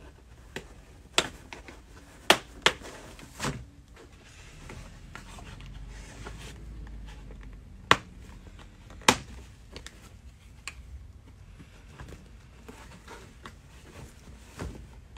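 Irregular sharp plastic clicks and knocks as plastic clips and trim pieces are pressed and snapped into a car's rear package tray board, with low handling rustle between them.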